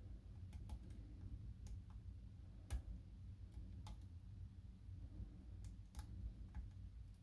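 Faint, irregular metallic clicks of a lock pick and tension tool working the pin stack of a small five-pin DOM cabinet lock, about eight ticks spread unevenly, over a low handling rumble.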